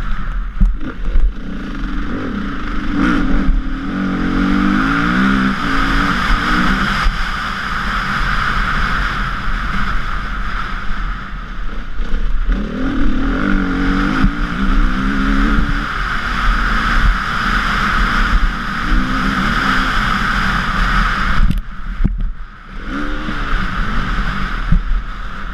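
KTM EXC 350 four-stroke single-cylinder dirt bike engine under hard riding, revs rising and falling repeatedly as the rider works the throttle and gears. The throttle is shut briefly near the end before the engine picks up again.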